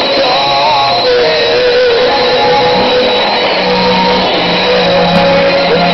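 Music from a shortwave AM broadcast on 6160 kHz, played through a Sony ICF-2001 receiver, under a haze of static hiss with a thin steady high whistle.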